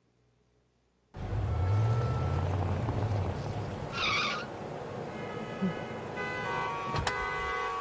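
Traffic sounds starting suddenly about a second in: a vehicle engine running, then car horns honking in long held tones from about five seconds in.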